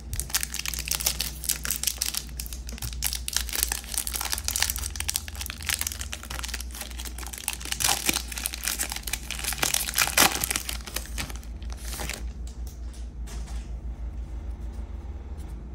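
Plastic wrapper of a 2023 Topps Series 1 baseball card pack crinkling as it is handled and opened by hand; the crackling thins out near the end.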